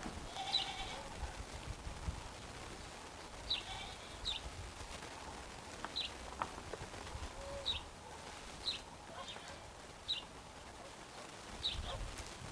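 Small songbirds calling: short, high, falling chirps repeated about once a second, part of lively spring birdsong.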